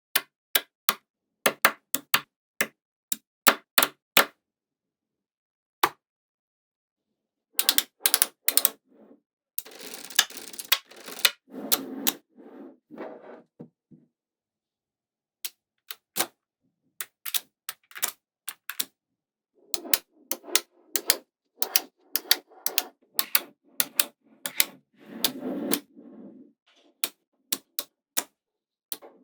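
Small magnetic balls clicking as they snap together, in scattered single clicks and quick runs of clicks with short rattling clatters, and a couple of pauses of a few seconds.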